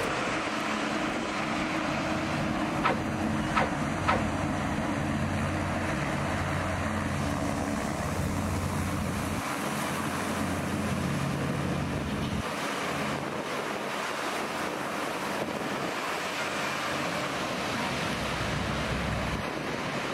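Hovertravel 'Island Flyer' hovercraft running past: a steady engine-and-fan hum under a rush of air and spray, with wind buffeting the microphone. A few sharp clicks come about three to four seconds in, and the low hum thins out about twelve seconds in.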